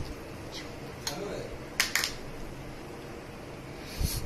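A metal spoon clinking lightly against a plastic yogurt cup and a glass dessert cup as yogurt is scooped and spooned in: a few short clinks, two close together about two seconds in and another near the end.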